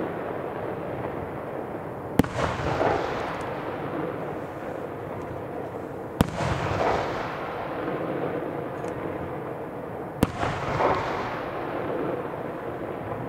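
Aerial firework shells bursting: three sharp bangs about four seconds apart, each followed by a couple of seconds of crackling and echoing rumble.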